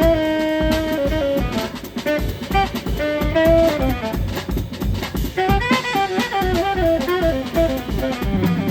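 Live jazz quartet playing: a saxophone carries the melody over drum kit, keyboard and bass. The saxophone holds a long note at first, then about halfway through plays a run of quick notes.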